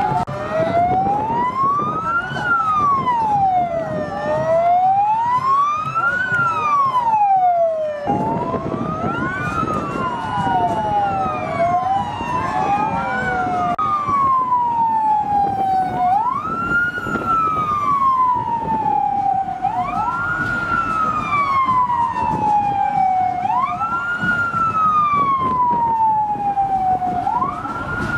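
Police sirens wailing, the pitch sweeping up and down about every four seconds, with two sirens overlapping at first. About eight seconds in the sound changes, and from halfway on the siren jumps up quickly and falls slowly, over and over.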